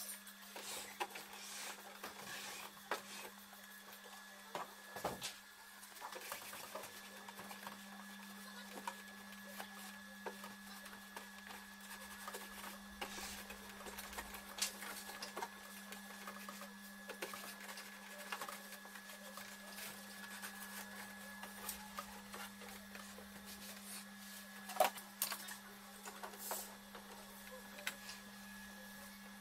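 Scattered clicks, taps and knocks of hands handling and wiping the plastic case of a Eumig R2000 film projector and fitting a film reel, over a steady low hum. The sharpest knock comes about 25 seconds in.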